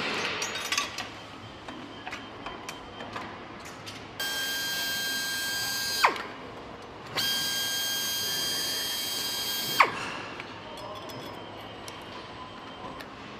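Electric power driver run twice while tightening fasteners on an engine: a steady high whine of about two seconds, a one-second pause, then another of about two and a half seconds. Each run ends with the pitch dropping sharply and a sharp click. Light metallic clatter of parts near the start.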